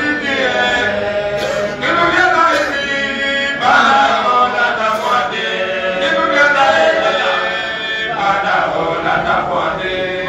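A man's voice chanting a melodic Islamic religious chant into a microphone, with long held notes.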